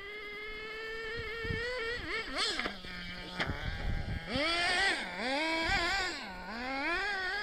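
Small nitro engine of a HoBao Hyper 7 RC buggy being driven hard. It revs up steadily over the first two seconds, drops briefly to a low idle about three seconds in, then revs up and down repeatedly as the throttle is worked through turns.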